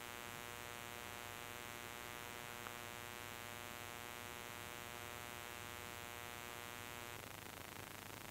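Faint steady electrical hum with many overtones over a hiss, cutting off about seven seconds in.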